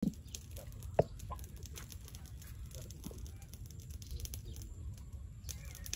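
Chickens clucking now and then over a low steady rumble, with one sharp click about a second in.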